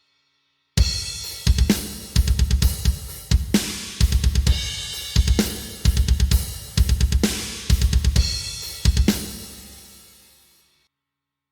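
Sampled acoustic drum kit from the Stigmatized Drummer Kontakt library playing a groove that starts about a second in: rapid runs of bass drum strokes under snare hits and crash cymbals. It ends on a cymbal hit that rings out and fades away.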